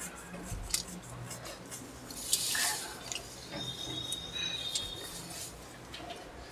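Eating sounds from a bowl of Maggi instant noodles: scattered clicks of cutlery against plates, and a louder slurp a little over two seconds in. A brief thin high squeak follows in the middle.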